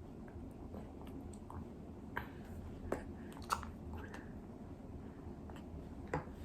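Faint mouth sounds and small clicks of a baby eating weaning food from a spoon, a few scattered clicks over a low steady hum.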